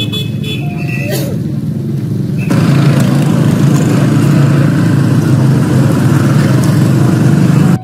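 Background music fading out, then about two and a half seconds in a sudden switch to loud, steady motor vehicle engine and traffic noise, which cuts off abruptly near the end.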